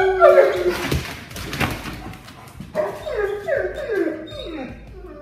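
Dog whining: a held whine trails off in the first half-second, a rough, noisy stretch follows, then a run of about five short whines that each slide down in pitch.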